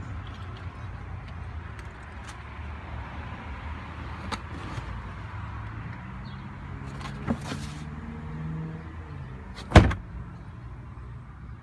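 A low steady rumble with a few light clicks. Midway, a small electric motor hums for about three seconds, its pitch rising a little before it stops. Then comes a single loud clunk, the loudest sound.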